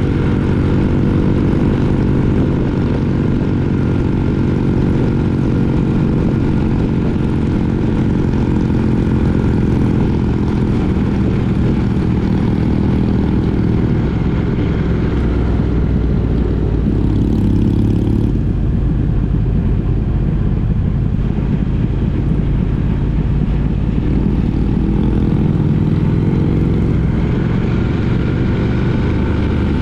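Triumph Speed Twin 900's parallel-twin engine running steadily while riding at road speed. Its note shifts in pitch about halfway through and again near the end as the revs change.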